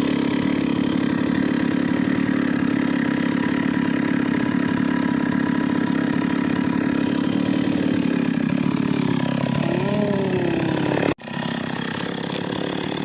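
Small two-stroke chainsaw engine running at a steady speed. It cuts off abruptly about eleven seconds in and resumes slightly quieter.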